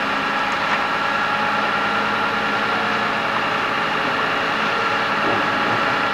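A crane's engine running steadily as it holds and swings a catamaran hull on its straps.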